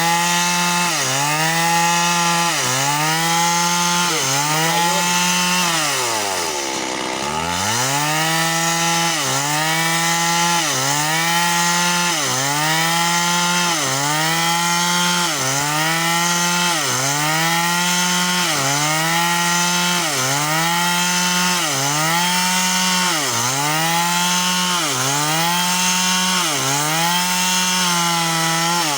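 Chainsaw cutting into wood at high revs. Its pitch sags and recovers roughly once a second as the chain bites. About seven seconds in, it drops almost to idle and revs back up.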